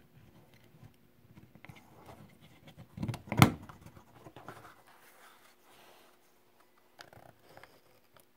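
Hands handling the plastic shell of a BIC Wite-Out correction tape dispenser: faint rubbing and small ticks, with one sharp plastic click about three and a half seconds in.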